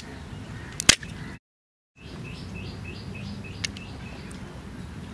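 Sharp clicks as a freshwater mussel shell is prised open by hand, the loudest about a second in; a bird chirps in a quick run of about six short notes a little after two seconds in. The sound cuts out briefly before the chirps.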